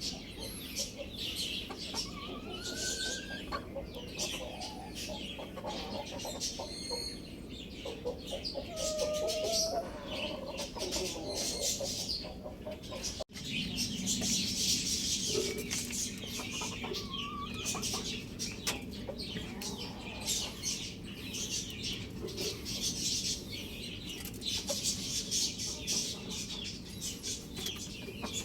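Chickens clucking, with many short, high-pitched chirps and a few brief calls that rise and fall in pitch. The sound drops out briefly about halfway through at an edit.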